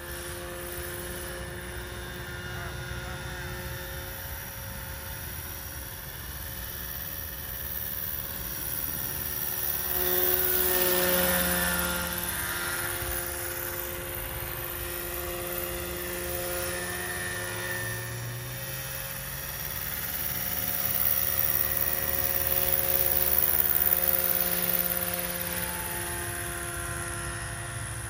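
Roban EC145 800-size scale RC helicopter in flight, its rotors and drive giving a steady whine and blade hum. The sound grows louder twice as the model passes closer, about a third of the way in and again near the end.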